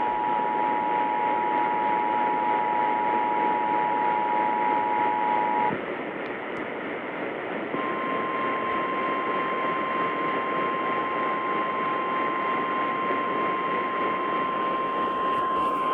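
Emergency Alert System attention signal received over AM radio: the two-tone 853 and 960 Hz alert over radio hiss, stopping about six seconds in. After a couple of seconds of hiss alone, a single steady tone near 1050 Hz, the NOAA Weather Radio warning alarm tone, sounds to the end, announcing a flash flood warning.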